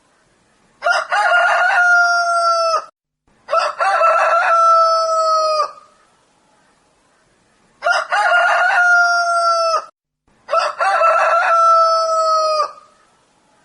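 Rooster crowing: four long cock-a-doodle-doo crows of about two seconds each, coming in two pairs, each crow ending on a held note that falls slightly.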